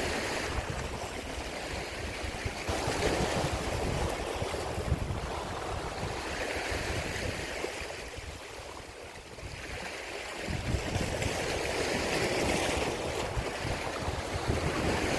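Sea waves washing along the shore, rising and falling, with wind gusting on the microphone as a low rumble that eases for a moment midway.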